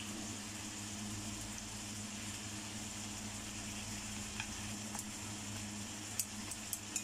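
Steady low hum of a kitchen appliance fan, with a faint hiss from the pan of bok choy and meatballs simmering in oyster sauce. A few light taps of wooden chopsticks against the pan come in the second half.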